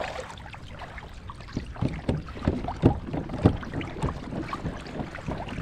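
Water splashing and sloshing around a kayak, in irregular surges, with wind on the microphone.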